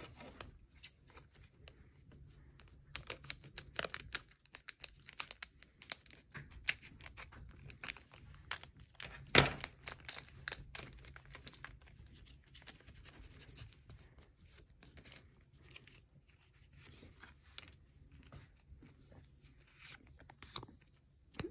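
Foil Pokémon booster pack wrapper crinkling and rustling as the cards are pulled out, with a run of crackles and clicks and one sharp snap about nine seconds in. Later, softer scattered clicks of playing cards being slid and flipped through by hand.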